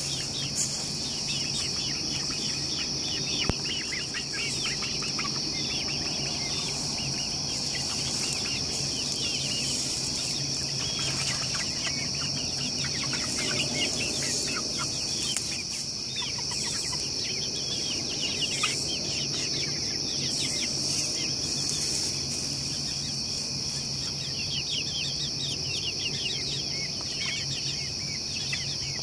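Young chickens, about two months old, settling on their roost, peeping and trilling in many short, falling calls, with a steady high-pitched drone behind them.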